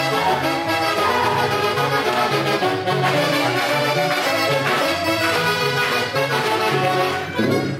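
Huaylarsh dance music from a band, wind instruments carrying the tune over a steady repeating bass line, with a brief drop in loudness near the end.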